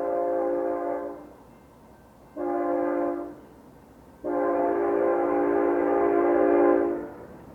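Diesel freight locomotive's multi-chime air horn sounding a chord in three blasts: a long blast ending about a second in, a short blast, then a long blast of about three seconds. This is the end of the long-long-short-long pattern sounded for a grade crossing.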